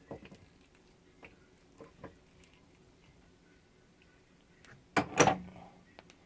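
Small clicks and taps from handling tools on heavy 2-gauge battery cable during wire stripping, then a louder short clatter about five seconds in.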